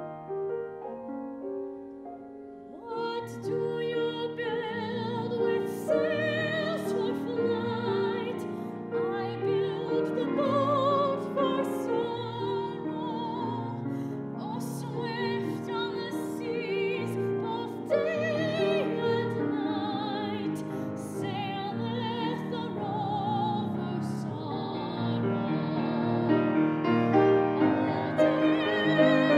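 Classical soprano singing an art song with grand piano accompaniment. The piano plays alone for the first few seconds, then the voice enters with a wide vibrato and sings on over the piano.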